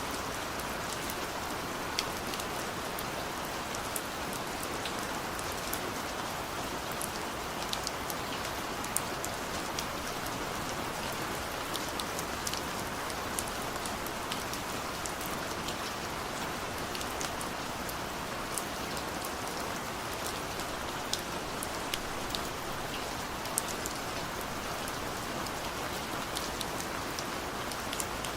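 Steady rain falling on a surface, an even hiss with scattered sharp drop impacts.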